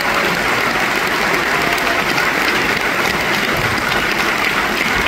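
Theatre audience applauding steadily, a dense, even clapping.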